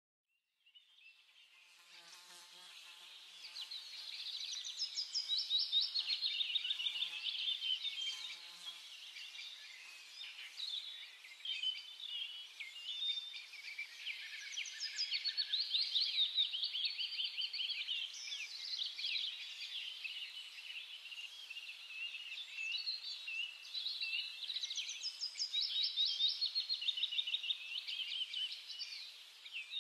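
Insect chorus: dense, high-pitched chirping that swells and fades several times.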